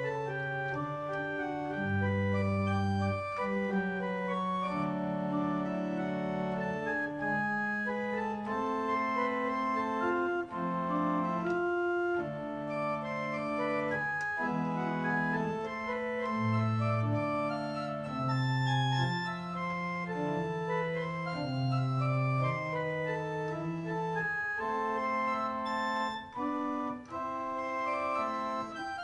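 Pipe organ played in several parts: sustained chords over a moving bass line, the notes held steady and changing in step.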